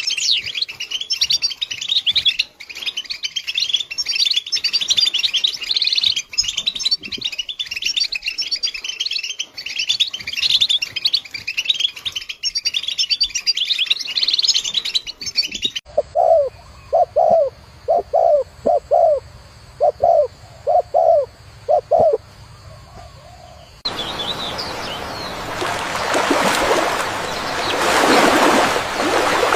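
Lovebirds chattering in dense, high, shrill chirps for about sixteen seconds. Then a dove coos in about a dozen short rising-and-falling notes. After a short lull a steady rushing noise sets in and swells near the end.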